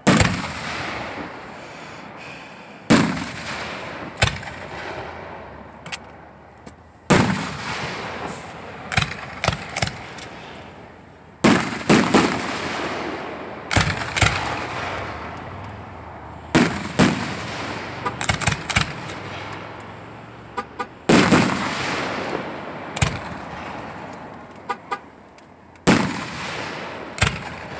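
Aerial firework shells bursting one after another, each sharp bang trailing off in a long rumbling echo. Quick strings of small pops come in between, twice.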